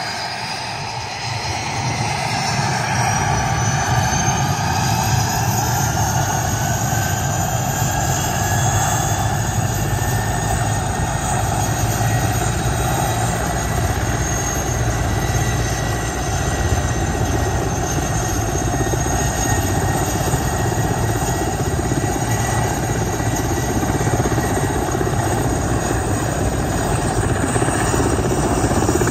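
Mil Mi-8 helicopter running up on the ground before take-off: its twin turboshaft engines whine, rising in pitch over the first ten seconds or so and then holding steady. Underneath is the steady low rumble of the turning main rotor.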